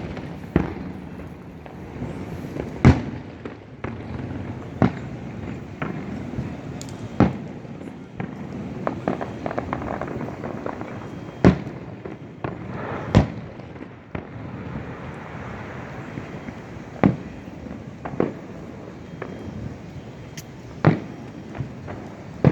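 A fireworks display heard from a distance: shells bang one at a time at uneven intervals, one to four seconds apart, over a steady background rumble.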